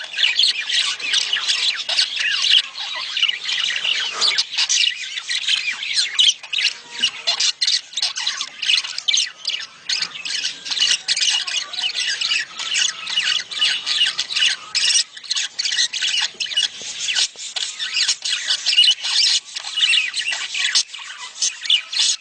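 Budgerigars chattering in a dense, unbroken stream of rapid chirps, warbles and squawks: budgie mating calls, of the kind played to stimulate hens to lay.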